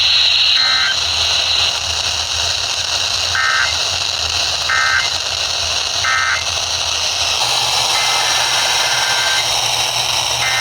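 Emergency Alert System SAME data bursts over steady radio hiss. Four short buzzy two-tone chirps close out the severe thunderstorm warning just read. Then, after a shift in the background about seven seconds in, longer data bursts begin: the header of the next alert.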